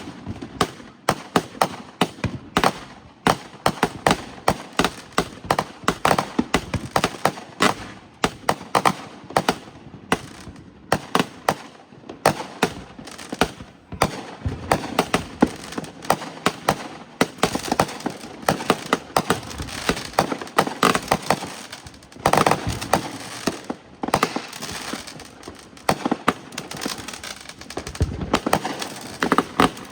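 Fireworks going off in a dense, irregular barrage of sharp bangs and crackles, several a second without a break, with a deeper boom near the end.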